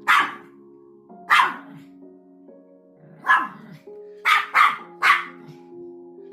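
A dog barking six times in short sharp barks, irregularly spaced, three of them in quick succession near the end, over background music.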